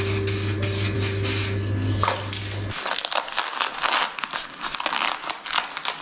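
Paint being sprayed in a run of short hissing bursts over a steady low hum. The hum stops a little over two and a half seconds in, and quick crackling and clicking take over.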